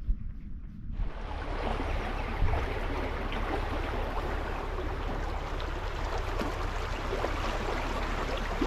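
Steady rushing water of a stream or waterfall, starting abruptly about a second in.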